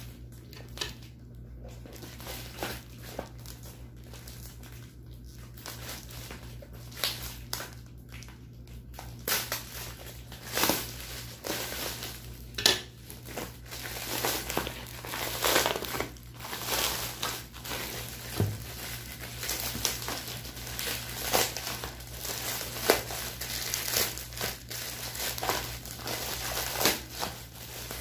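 Plastic packing tape and wrapping crinkling as a taped parcel is pulled open by hand, with a plastic bag rustling inside. The crinkling is sparse at first and becomes dense and busy about nine seconds in.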